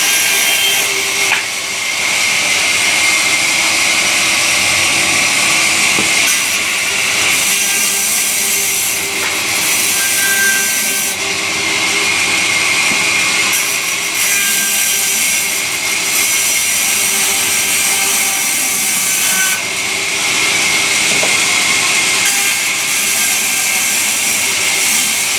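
Sawmill power saw cutting through timber: a loud, steady hissing rasp of the blade in the wood, with a faint steady hum of the machine beneath.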